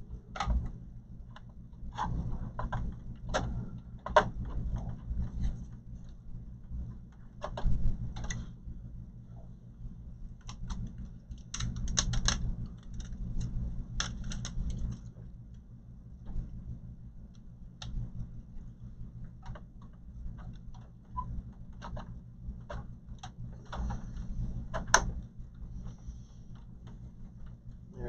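Irregular clicks, taps and rattles of a graphics card and its connectors being handled and seated in a desktop computer case, over a steady low hum.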